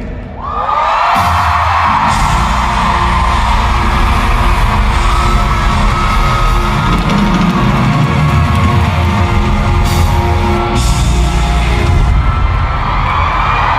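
A band playing a pop-rock song live, with a singer's voice held on long notes over it. The music dips briefly just after the start, then comes back in full.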